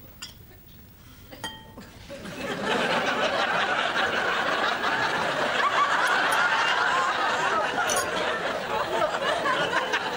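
Studio audience laughter that swells in about two and a half seconds in and carries on. Before it come a few light clinks of cutlery on crockery, one of them ringing briefly.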